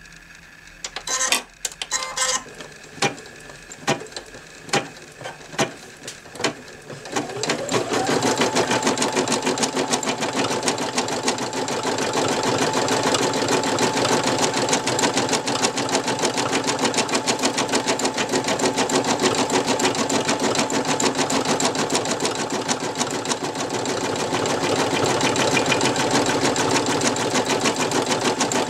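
Brother NV2600 computerized embroidery machine stitching. For the first several seconds it makes single separate needle strokes. About seven seconds in, its motor winds up with a rising whine into fast, steady stitching with a held hum.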